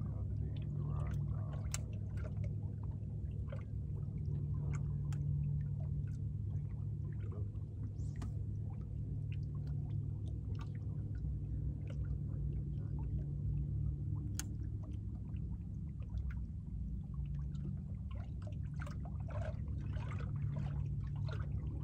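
Water lapping and sloshing against a bass boat's hull, with scattered small clicks and splashes over a steady low hum.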